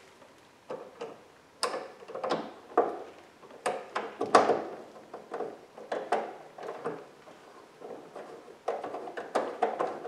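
Hand-tool work on a metal bracket: irregular clicks, clinks and knocks of a screwdriver and metal fittings, with a heavier clunk about four and a half seconds in and quicker rattling near the end.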